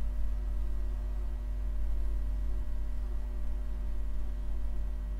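A steady low electrical hum with faint, unchanging tones above it, and no speech.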